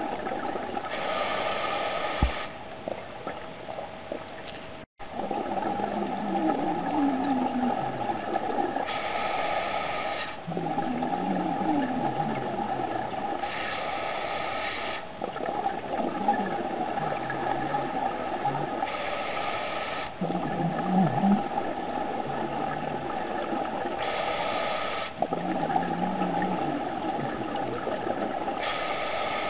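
Underwater sound beside a goliath grouper: a steady hum and hiss, with a brighter hiss returning about every five seconds. There is a short low thump about two seconds in, and faint low wavering sounds now and then.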